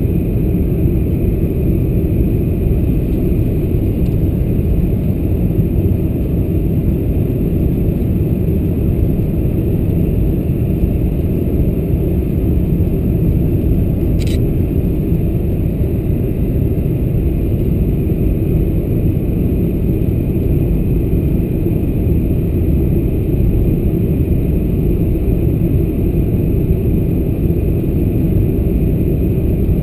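Steady cabin roar of a Boeing 747-400 on approach, engine and airflow noise heard from a window seat over the wing with the flaps extended. A single brief click sounds about halfway through.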